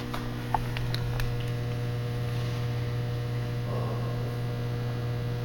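Steady electrical mains hum, low and unbroken, with a few faint clicks in the first second or so.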